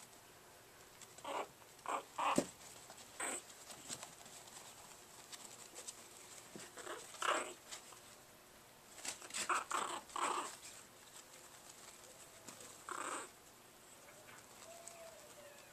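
Two five-week-old Chihuahua puppies play-fighting, giving short yaps and growls in scattered bursts. The busiest stretch is a cluster about nine to ten and a half seconds in.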